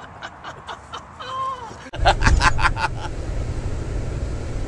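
Steady low rumble of engine and road noise inside a moving coach, starting abruptly about two seconds in. It opens with a quick run of loud vocal bursts. Before it there are faint ticks and a short tone.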